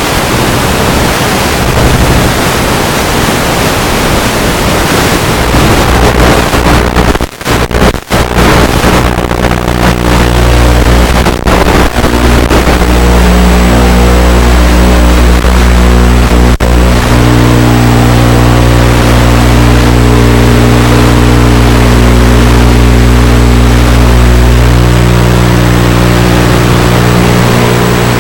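FPV quadcopter's electric motors and propellers running loud under throttle, a steady whine over rushing air whose pitch shifts up and down. The sound briefly drops out twice, about seven and eight seconds in.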